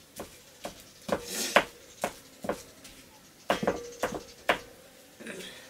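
Stone pestle pounding fresh stinging-nettle (sishnu) leaves in a stone mortar: short, sharp knocks about twice a second, with a brief pause midway.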